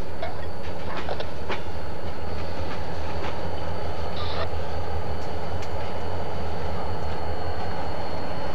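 Freight cars (boxcars, then a tank car) rolling past close by: a steady low rumble of wheels on rail with scattered clicks and clanks, and one brief high squeal about four seconds in.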